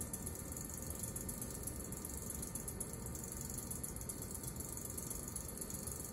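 Electric potter's wheels spinning steadily under wet clay: an even mechanical whirr with a fine, fast rattle.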